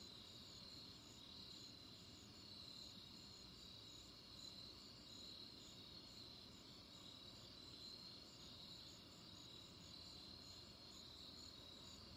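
Very faint, steady chirping of crickets over near silence.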